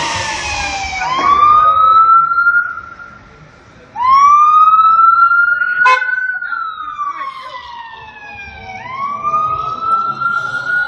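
Emergency vehicle siren wailing, sweeping up quickly and sliding slowly down in repeated cycles, with a short horn blast about six seconds in.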